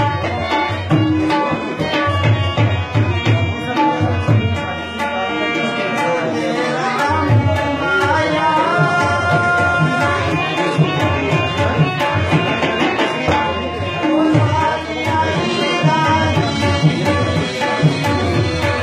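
Live Hindko folk music (tappay): tabla drumming a steady rhythm under a melodic line.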